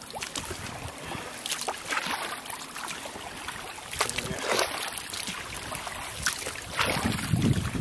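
Wooden double-bladed kayak paddle dipping into the water on alternate sides, with a splash and trickle every second or two as the blades enter and drip. Near the end there is a low rumble of wind buffeting the microphone.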